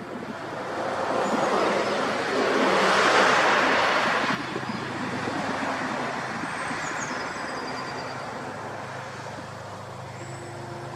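Road vehicle noise: a rushing engine-and-tyre sound swells to a peak about three seconds in and drops off suddenly a second later, leaving a steady low engine hum that slowly fades.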